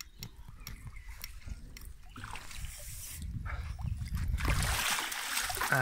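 Water splashing and dripping over rumbling handling noise as the landing net with a freshly netted carp is moved on the bank, growing louder over the last two seconds and ending in one sharp knock.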